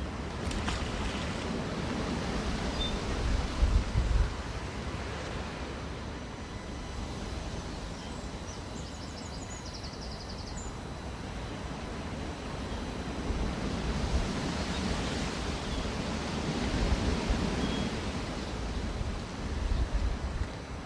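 Wind rumbling on the microphone over a steady outdoor hiss, swelling louder a few times.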